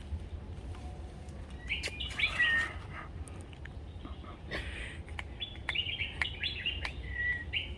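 Birds chirping and calling in two short bouts, with a short falling whistle near the end of each, over a steady low rumble and a few faint clicks.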